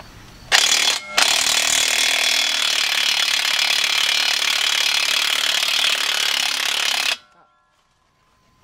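Porter-Cable 20V cordless impact wrench hammering on a lower strut-to-knuckle bolt. It is pretty loud. It starts about half a second in, breaks off for a moment just after one second, then runs on for about six seconds before cutting off.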